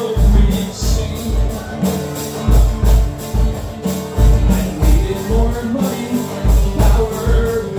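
Live acoustic band music with no vocals: an acoustic guitar strummed over a steady beat of deep drum thumps, a hand drum and jingling percussion.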